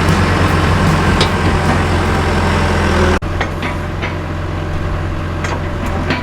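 Backhoe's heavy diesel engine running steadily, with a few sharp knocks. The sound breaks off for an instant about three seconds in, then carries on.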